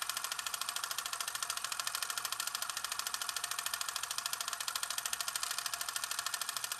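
Film projector running: a rapid, even mechanical clatter.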